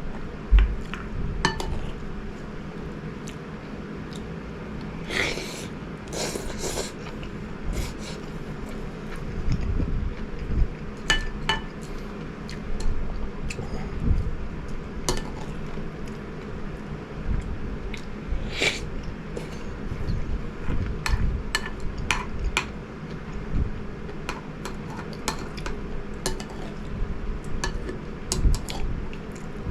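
Eating sounds: a utensil clinking against a dish in scattered, irregular clicks, with chewing of the crunchy fried onion topping on rice. A faint steady hum runs underneath.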